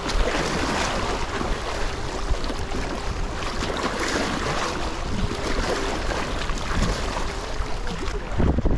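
Small waves splashing against shoreline rocks, with wind buffeting the microphone, which grows stronger near the end.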